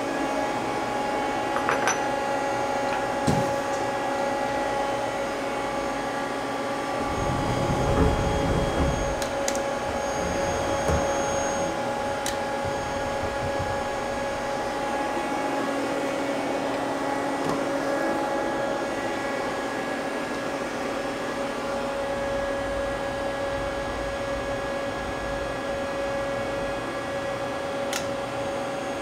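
Mazak CNC lathe running with a steady machine hum made of several steady tones. A few light clicks sound over it, and a brief, louder low rumble comes about eight seconds in.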